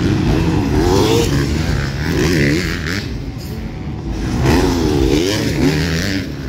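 Motocross bikes racing on the track, their engines revving up and dropping back again and again as riders open and shut the throttle, over a steady low rumble of other bikes.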